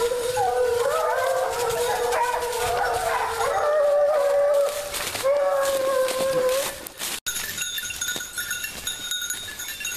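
A pack of white scent hounds baying, several voices overlapping in long drawn-out cries as they work the scent of game during a rapproché. About seven seconds in there is an abrupt break, and the baying goes on fainter.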